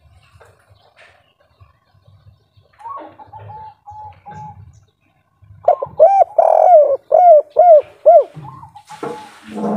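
Spotted dove cooing. A faint run of short, even notes comes about three seconds in. Then, about six seconds in, a loud phrase of quick arched coos with one longer held note. A short noisy burst comes near the end.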